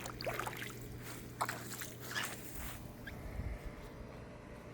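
Footsteps squelching and splashing through a waterlogged, flooded yard: a few separate steps in the first three seconds, then quieter.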